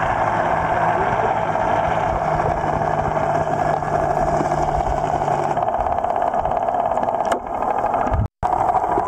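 Muffled underwater sound: a steady water rush with a low drone from a boat engine that stops a little past halfway. A click, then a brief total dropout, near the end.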